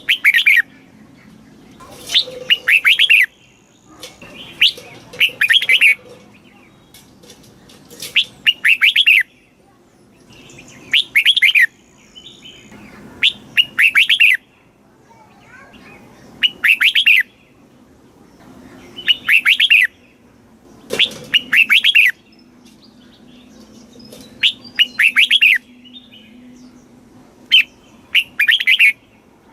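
Red-whiskered bulbul singing: short bright phrases of several quick warbled notes, each about a second long, repeated every two to three seconds.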